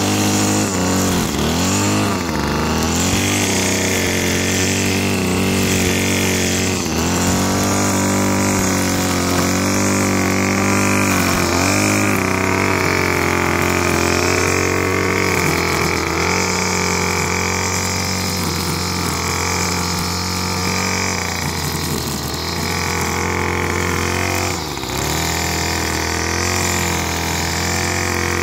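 Gas string trimmer's small engine running steadily at high speed, its pitch dipping briefly several times as it cuts roadside grass.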